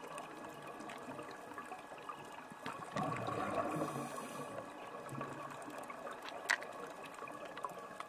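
Underwater ambience recorded on a reef: a steady wash of water noise with scattered sharp clicks, one standing out about six and a half seconds in, and a louder stretch about three seconds in.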